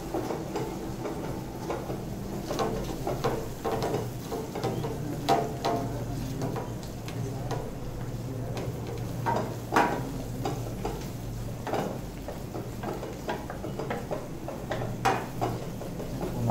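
Ladle stirring and scraping a blackened kadai of onion-and-spice masala sizzling in oil for chole, with sharp knocks of the ladle against the pan every second or few seconds. A steady low hum runs underneath.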